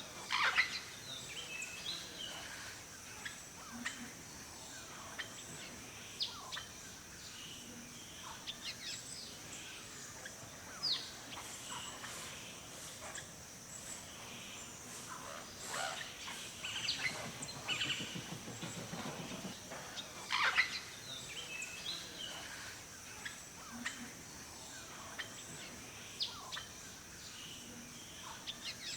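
Forest birdsong: many short chirps and calls from several birds, some quick falling notes, scattered irregularly over a steady high-pitched hiss.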